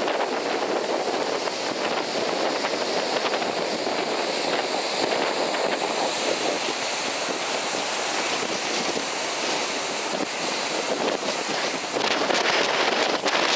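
Rough sea surf breaking and washing over breakwater rocks, heard as a steady rushing noise mixed with wind buffeting the microphone. It gets a little louder near the end.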